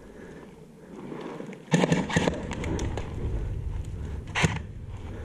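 Broken bricks and rubble knocking and crunching under a person crawling over them, with a cluster of knocks about two seconds in and one sharp knock near the end.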